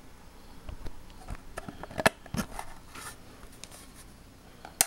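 Hard plastic clicks and small knocks as the faceplate of a Simpletech Simpledrive external hard drive enclosure is worked loose from its tabs. They come scattered, with the sharpest click near the end.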